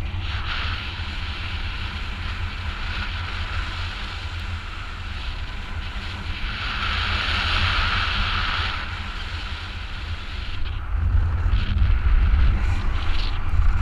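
Rushing airflow of a paraglider in flight buffeting a GoPro camera's microphone: a steady low rumble, with a hiss that swells about halfway through and heavier buffeting near the end.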